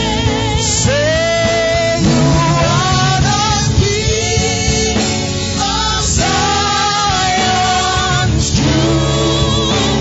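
Live gospel worship music: a male lead singer holding long, gliding notes with vibrato, backed by a choir over sustained instrumental accompaniment.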